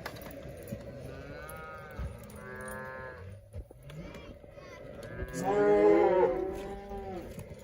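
Cattle mooing: two fainter calls early on, then a loud, drawn-out moo about five seconds in.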